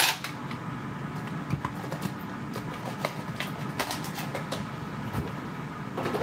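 Air fryer running: a steady low fan hum, with a few faint light taps scattered through it.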